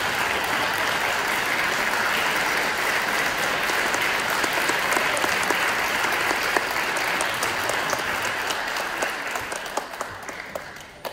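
Audience applauding, the dense clapping thinning out near the end into a few scattered claps.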